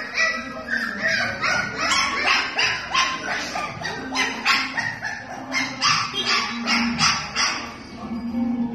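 Pit bull puppies barking and yipping over and over in short, high-pitched barks, about three a second, easing off near the end.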